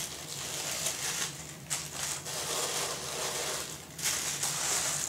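Tissue paper rustling and crinkling in uneven surges as hands pull it out of a humidor.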